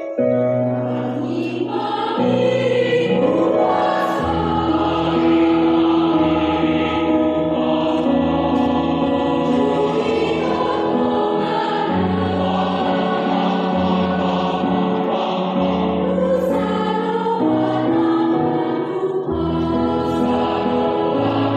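Mixed-voice school choir of girls and boys singing in parts, holding sustained chords that shift every few seconds.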